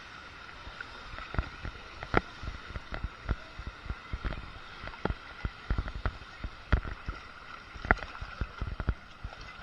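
Water rushing close to a waterproof action camera, with many irregular clicks, splashes and knocks throughout; the sharpest knocks come about two seconds in and near the end.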